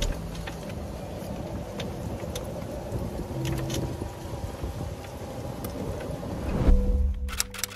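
Open-sided cart driving along, a steady rumble of motor and rolling with scattered rattles and clicks. Near the end it cuts to rapid typewriter-style clicking.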